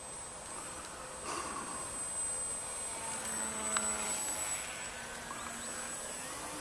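Faint drone of a radio-controlled combat flying wing's propeller motor flying overhead, its pitch sliding upward near the end, over a steady hiss.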